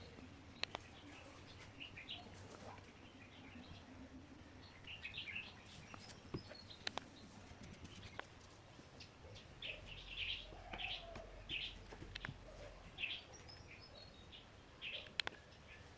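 Faint birds chirping in short clusters, with a few sharp clicks or taps.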